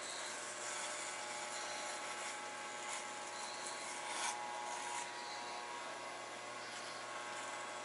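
Electric hair clippers running with a steady buzz while cutting hair, with a few brief scratchier moments as the blades pass through it.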